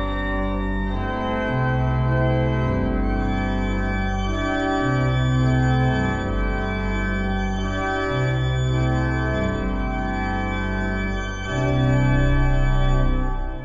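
Sanctuary pipe organ playing sustained full chords over long held bass notes. It stops on a short final chord right at the end, and the room's reverberation keeps the sound going.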